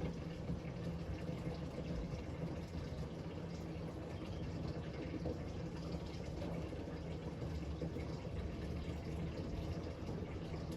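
Water running steadily, as from a tap filling a container, over a low steady hum.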